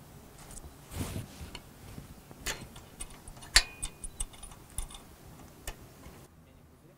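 Small metallic clicks and ticks as 316 stainless steel wire, clamped in a small bench vise, is wound around an iron rod to form a lure's wire eyelet. One sharper click comes about three and a half seconds in.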